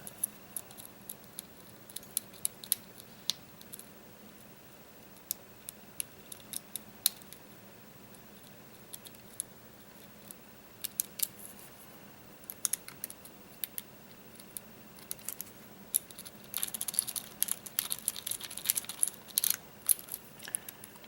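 Lock pick and tension wrench working the pins of a clear plastic 6-pin practice lock: scattered light clicks and scrapes, thickening into a quick run of scratchy clicking and rattling near the end. The lock has not opened.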